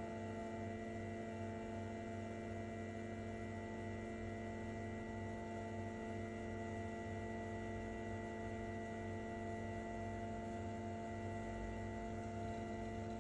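Elegoo Mars 5 Ultra resin printer's Z-axis motor running at constant speed as the build plate travels, a steady whine of several tones held at one pitch.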